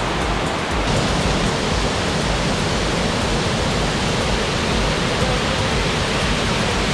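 Waterfall: a steady rush of falling water, heard close.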